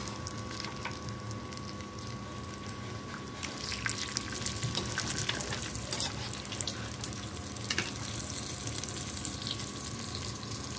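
Cashews frying in hot oil in a kadai: a steady sizzle with many small crackles and pops.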